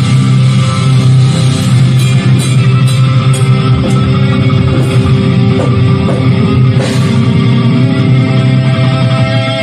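Hardcore band playing an instrumental passage: heavily distorted electric guitars and bass over a drum kit, with repeated cymbal crashes and no vocals.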